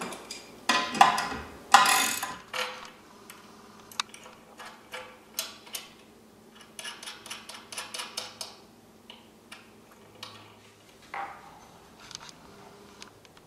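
Small steel cable-railing hardware (nuts, washers and threaded turnbuckle ends) clicking and clinking against a steel I-beam post as it is fitted by hand, with a run of quick clicks about seven seconds in. Two louder rustling scrapes come in the first two seconds.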